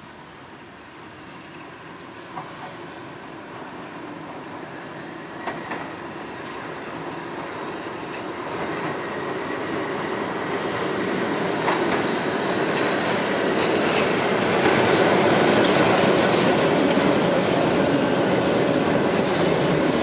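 Keihan Ishiyama-Sakamoto Line tram running on street track toward the listener and past. It grows steadily louder, with a few sharp clicks from the wheels, and is loudest about three quarters of the way in.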